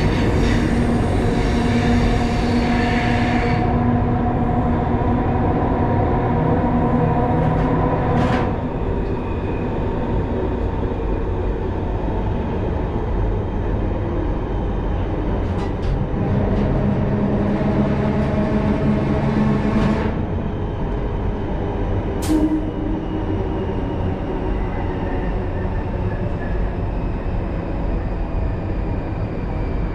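Vintage electric train running through an underground tunnel, heard from the driver's cab: a steady rumble of wheels on rail with a humming tone, broken by a few sharp clicks.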